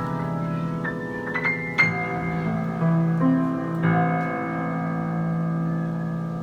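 Yamaha G5 grand piano playing a slow phrase of single notes, then a chord struck about four seconds in and left ringing, fading slowly.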